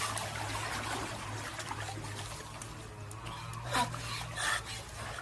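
Pool water splashing and trickling, over a steady low hum, with a short faint squeak about four seconds in.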